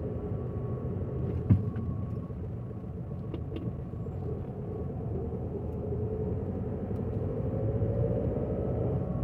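Motor vehicle running with a steady low rumble, its engine note rising near the end, and a single knock about a second and a half in.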